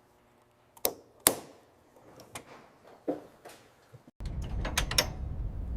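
Workshop tool and parts sounds: two sharp metallic clicks about a second in, then a few lighter ticks. About four seconds in, a steady low mechanical rumble starts suddenly.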